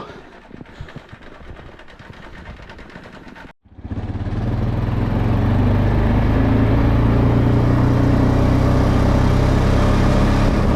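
Four-wheeler (ATV) engine running steadily and loudly, coming in abruptly about three and a half seconds in; before that only faint rustling outdoor noise.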